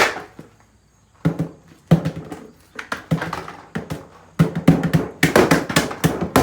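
Repeated hard blows striking a refrigerator being broken apart: a few separate hits in the first half, then a quick run of hits close together from about four seconds in.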